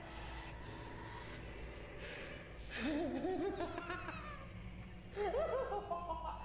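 A voice laughing in short repeated rising-and-falling bursts, starting about three seconds in and again about five seconds in, over a low steady drone.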